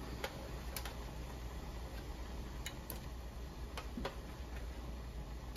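Large pot of seafood boil simmering: scattered, irregular sharp pops and clicks over a steady low hum.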